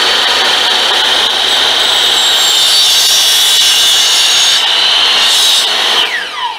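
Electric miter saw running at full speed with a steady high whine as its blade is brought down through a bamboo pole. Near the end the motor is released and the blade winds down with a falling whine.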